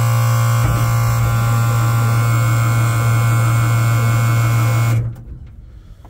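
Starter of a 5-ton military 6x6 truck cranking the engine with a loud, steady hum, the engine turning over unevenly without firing after ten years of sitting, primed with gas in the carburetor; the starter cuts off about five seconds in.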